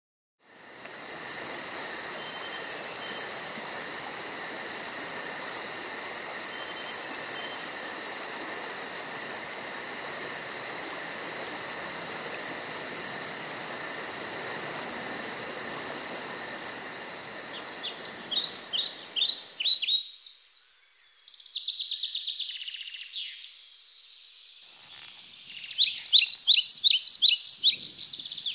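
A steady insect chorus with a fast, very high pulsing trill, which stops about twenty seconds in. Songbirds call in quick runs of short chirps from about eighteen seconds in, loudest near the end.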